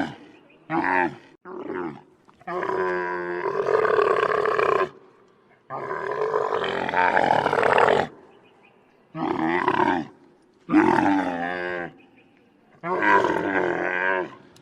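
Camel calling: a series of about seven low, rough calls with pauses between them. The two near the start are short, the next two each last over two seconds, and the rest last about a second each.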